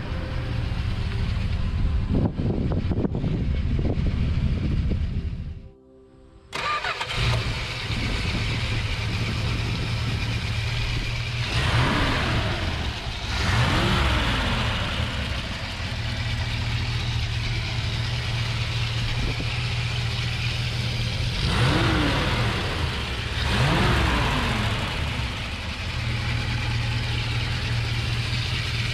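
1964 Plymouth Barracuda's 273 cubic inch V8 running as the car drives up. It then idles steadily, and the throttle is blipped four times in two pairs, each rev rising and falling quickly.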